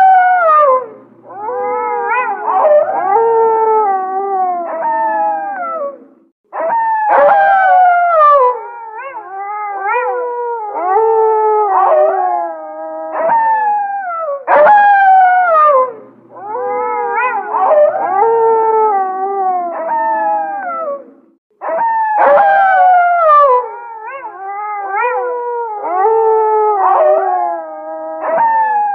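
Several wolves howling together in a chorus: long howls that slide down in pitch, several voices overlapping at different pitches, with brief lulls about six and twenty-one seconds in. The same stretch of chorus repeats about every fifteen seconds.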